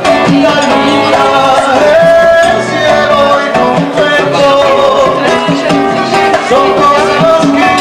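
Live band music with a sung vocal over instruments, playing steadily throughout.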